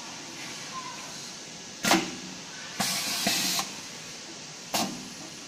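CNC wire bending machine working steel wire: a sharp clack about two seconds in, a hiss lasting under a second, then a second sharp clack near the end, over a steady machine hum.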